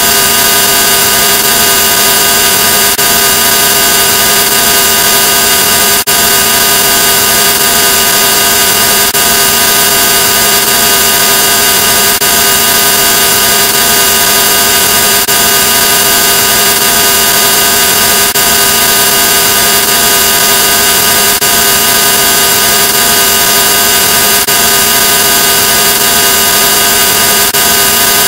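Harsh, heavily processed electronic noise: a loud, steady drone of many held tones over a hiss, with a faint click about every three seconds.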